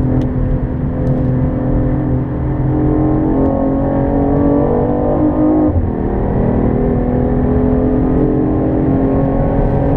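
Car engine pulling under acceleration, its pitch rising steadily, then dropping sharply at a gear upshift about six seconds in and rising again.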